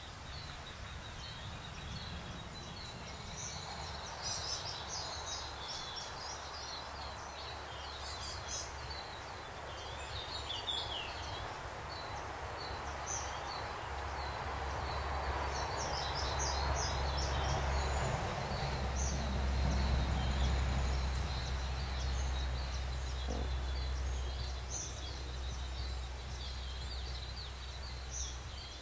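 Small birds chirping in short, high calls over a steady low rumble, with a wash of noise that swells through the middle and fades again.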